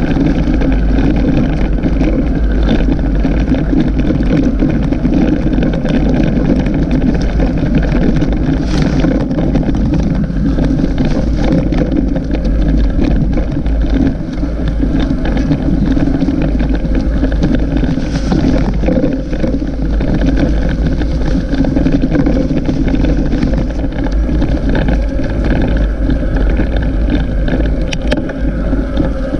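Loud, steady wind buffeting and rumble on a moving camera's microphone while riding a bicycle over an unpaved track, with a few faint rattles.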